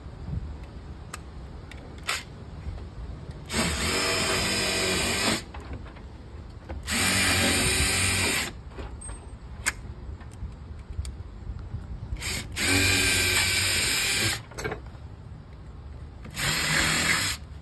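Makita cordless drill with a Phillips bit driving screws into the pre-drilled hinge side of a storm door. The motor runs four times in short runs of one to two seconds, with small clicks and knocks between.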